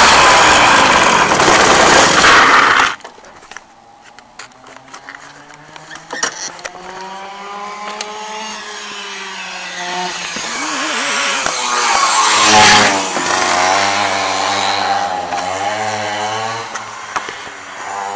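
Go-kart engine revving up and down, its pitch rising and falling as the kart drives, loudest about twelve seconds in. For the first three seconds a loud rushing noise covers it, then stops abruptly.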